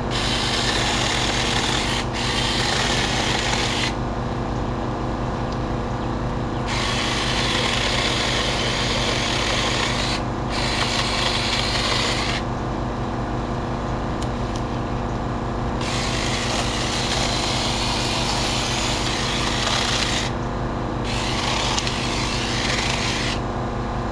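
Battery-powered 6-inch mini chainsaw cutting through branches in a run of separate cuts, each a few seconds long, the chain rasping through the wood. A steady low motor hum runs underneath throughout.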